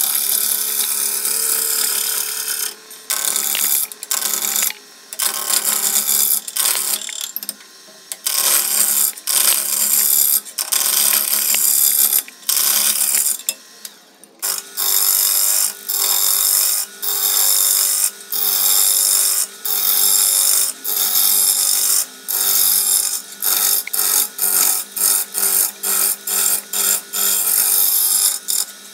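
A turning tool cutting a wet cypress blank spinning on a wood lathe: a loud shearing noise in many short passes with brief breaks as the tool comes off the wood, over the steady hum of the lathe.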